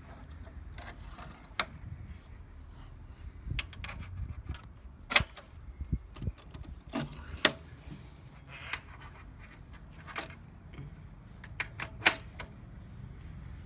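Scattered sharp clicks, knocks and rattles of plastic and metal parts as the electronics unit of a Datapath satellite dish terminal is handled and latched onto the dish mount, over a steady low rumble.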